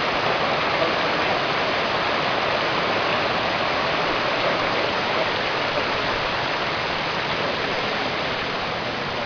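Steady rushing of flowing river water, an even hiss that holds at one level.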